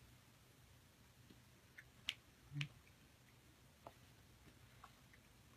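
Near silence: room tone with a few faint, scattered clicks and a soft thump about two and a half seconds in.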